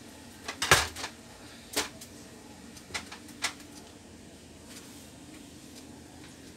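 Six sharp plastic clicks and knocks in the first three and a half seconds, the loudest about three-quarters of a second in, as the open, disassembled Epson L1300 inkjet printer's housing and parts are handled on the bench.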